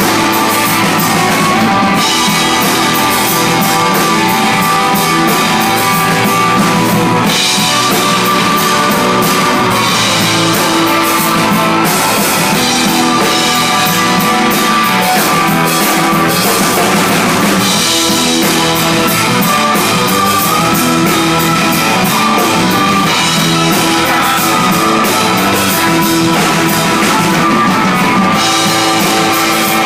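Live rock band playing: a drum kit with cymbals keeping a steady beat under electric guitar.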